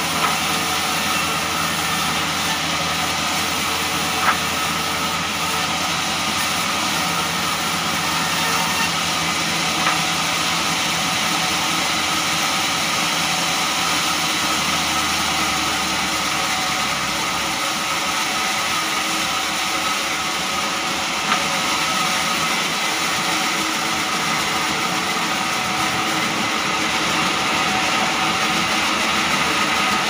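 Sawmill band saw running steadily, a dense mechanical noise with steady tones, with a few sharp knocks of timber being handled.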